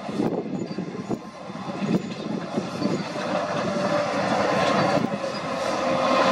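Heavy diesel earthmoving machines working: a crawler bulldozer's steel tracks clank and squeal over its running engine. In the second half a steadier whine builds and grows louder.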